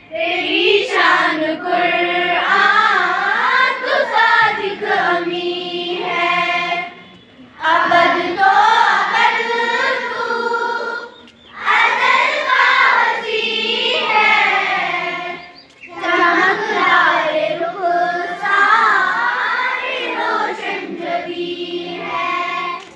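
A group of children singing a prayer song together in unison, in four long phrases with short breaks between them.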